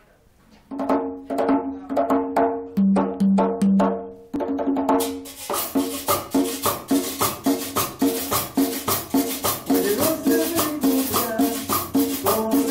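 A pair of conga drums played by hand in a cumbia rhythm, with clear pitched open tones on two or three drum pitches. About five seconds in, a shaker joins, keeping a fast, even pulse over the drums.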